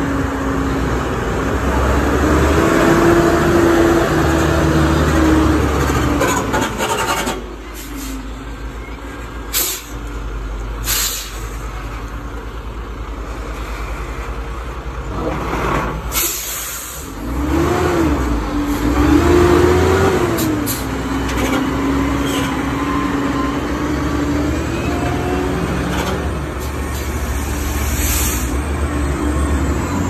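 Diesel engines of heavily overloaded dump trucks running under load on a steep grade, with the engine pitch rising and falling. Short sharp air-brake hisses cut in several times.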